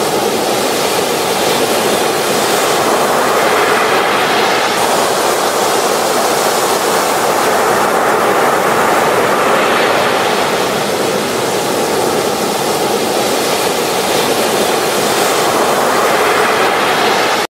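Ocean surf breaking on a beach: a steady rush of foaming water that swells every five or six seconds as each wave breaks.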